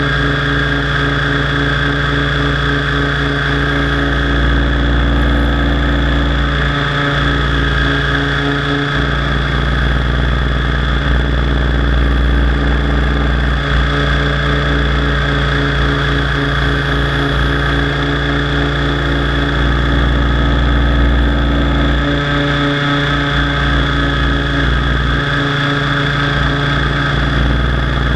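Align T-Rex 700 DFC radio-controlled helicopter in flight, heard from its onboard FPV camera: a loud, steady drivetrain sound with several held tones over a deep rotor-and-wind rumble that briefly dips a few times.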